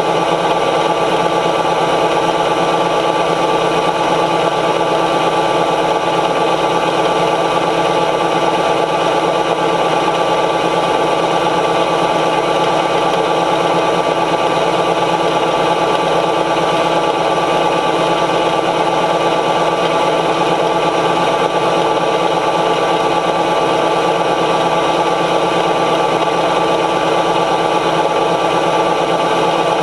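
John Deere 9500 combine running steadily at working speed, its engine and threshing machinery making a constant, even drone.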